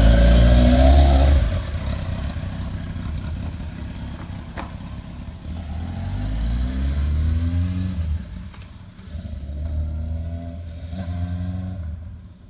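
Sport motorcycle engine revving hard and pulling away, then accelerating through the gears, its pitch climbing in repeated sweeps. It grows fainter and swells again with distance, dying away near the end.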